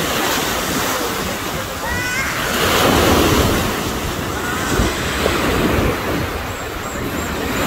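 Small sea waves breaking and washing up on the beach in a steady surf, swelling loudest about three seconds in as a wave breaks close by.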